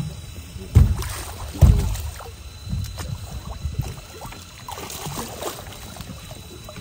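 Two heavy thumps about a second apart, followed by lighter, irregular knocks and clatter aboard a fishing boat.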